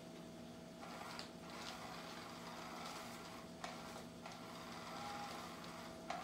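Battery-powered cat toy whirring as its motor drives a wand around under its fabric cover. The whirr starts about a second in, has a few clicks along the way, and stops with a click near the end.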